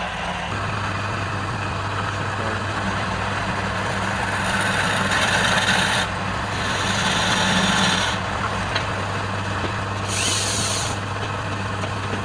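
Woodturning lathe running with a steady motor hum that settles in about half a second in, and a tool working the spinning wood, giving bursts of hiss about four, six and a half and ten seconds in.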